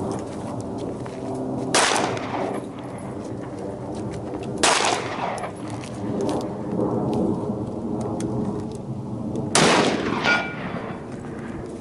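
Three shots from a 12-gauge Mossberg 500 pump shotgun firing slugs, about three and five seconds apart, each with a short echo.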